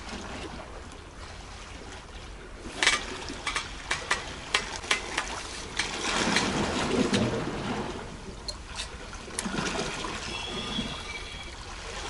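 Sea waves sloshing and washing against a rocky shoreline, swelling and easing. A run of sharp clicks comes about three to six seconds in.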